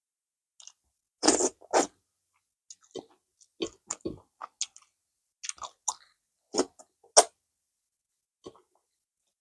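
Wet chewing and lip smacking of a person eating banku with okra stew and goat meat: short, irregular smacks with pauses between, the loudest a little over a second in and again around seven seconds in.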